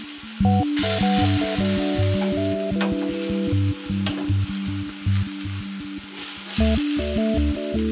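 Sliced beef and onions sizzling in a stainless steel frying pan while they are stirred with a wooden spatula; the sizzle starts about a second in and eases off near the end. Background music with a steady beat plays under it.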